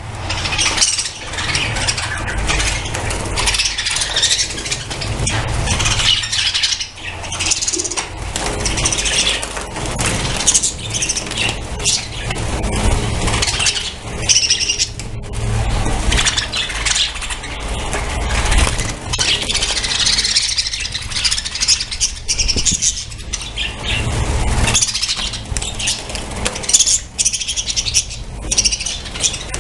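A flock of budgerigars chattering and chirping continuously, many birds calling at once, over a low rumble.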